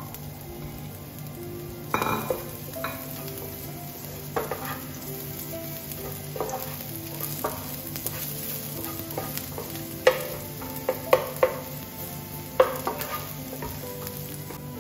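Minced garlic and ginger sizzling softly in olive oil in a nonstick frying pan. A wooden spatula stirs them and knocks against the pan several times, most sharply from about ten to thirteen seconds in.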